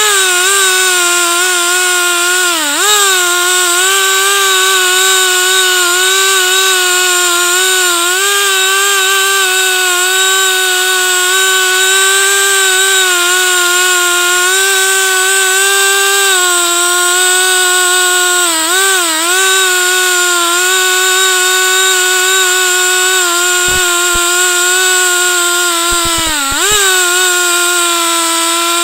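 Chainsaw running at high, steady revs as it rips a log lengthwise in a chainsaw mill. Its pitch dips briefly and recovers three times, a few seconds in, about two-thirds through and near the end, as the saw bogs under the load of the cut. A few low knocks come near the end.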